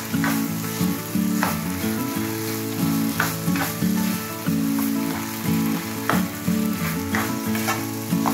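Rice with diced ham and vegetables sizzling in a frying pan while a spatula stirs through it, with repeated scraping strokes against the pan.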